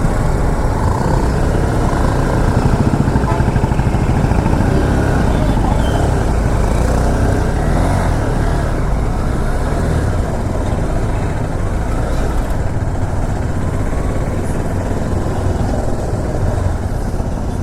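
Honda CB200X motorcycle's single-cylinder engine running as the bike rides along, with steady wind noise on the microphone.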